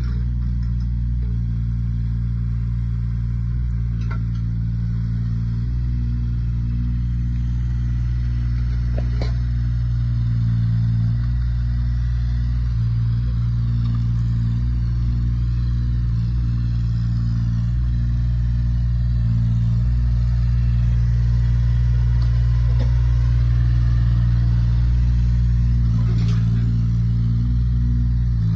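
JCB 8008 micro excavator's small diesel engine running under hydraulic load as the machine tracks and swings its arm, its note shifting in steps as the controls are worked. A few light knocks come through about four, nine and twenty-six seconds in.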